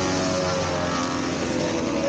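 Snowmobile engines running, a loud steady drone of several engine tones whose pitch sags slightly.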